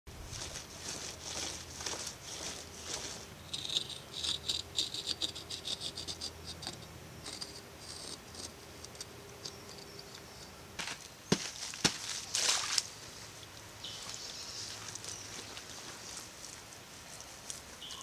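Dry dirt being dug and scraped with a stone hand tool: scratchy scraping strokes, with a few sharp knocks and a loud rasping scrape about twelve seconds in. Insects chirp behind it.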